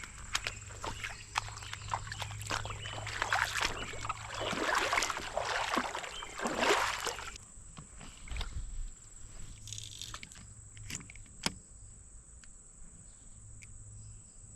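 Creek water sloshing and splashing in noisy swishes, loudest about five and seven seconds in, with scattered sharp clicks and knocks.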